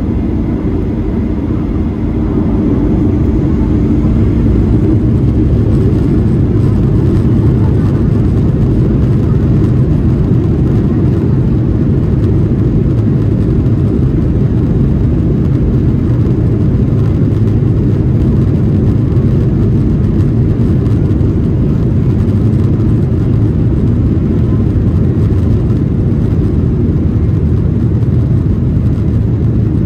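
Boeing 737-800's CFM56-7B turbofan engines running at takeoff thrust, heard inside the cabin as a loud, steady low rumble that grows louder about two seconds in and then holds.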